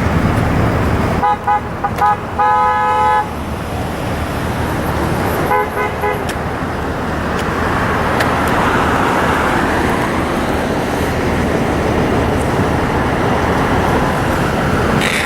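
Car horns honking over the steady rush of freeway traffic: a couple of short toots about a second in, a longer honk just after, and another short honk about six seconds in. The drivers are honking in answer to the protesters' 'honk to impeach' call.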